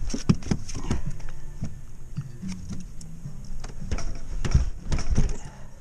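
Irregular knocks, clicks and rattles of a plastic cooler lid being lifted and handled, over a low steady hum.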